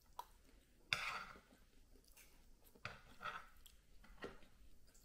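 Someone eating from a frying pan with a fork: soft chewing, with a few clicks and scrapes of the fork against the pan, the sharpest about a second in.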